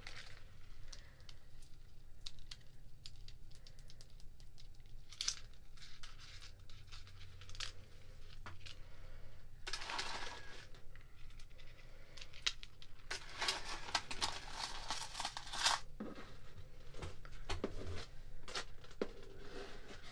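A layered set of thin metal necklace chains clinking and sliding against one another in the hands, close to the microphone: many small light clicks. Louder rustling comes about ten seconds in and again from about thirteen to sixteen seconds.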